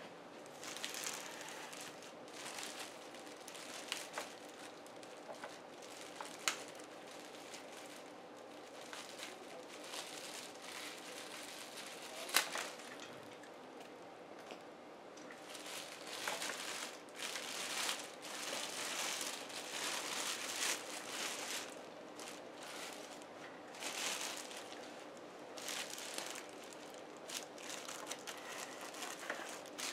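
Clear plastic bag wrapping a small tabletop reflector telescope crinkling and rustling in irregular bursts as it is handled, with a few sharp clicks, busier in the second half, over a faint steady hum.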